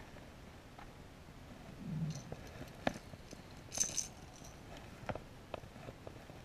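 Lucky Craft LV500 lipless crankbait's internal rattles shaking briefly as the lure is handled, about four seconds in, among scattered light clicks and knocks of handled fishing gear.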